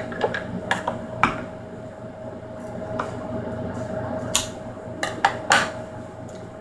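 A plastic package being handled and cut open: irregular sharp clicks and crinkles, bunched about a second in and again between four and six seconds, over a steady faint hum.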